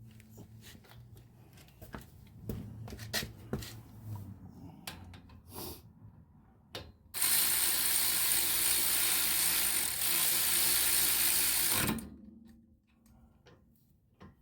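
Hand ratchet clicking in short runs as the knuckle bolts are snugged up, then a loud steady rush of noise lasting about five seconds that cuts off sharply.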